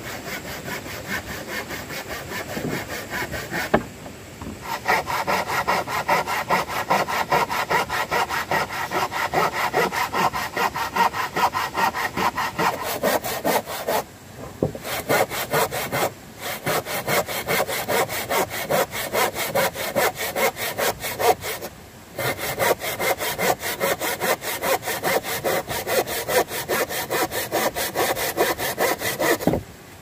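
Hand saw cutting through wood in quick, even back-and-forth strokes, stopping briefly a few times before carrying on.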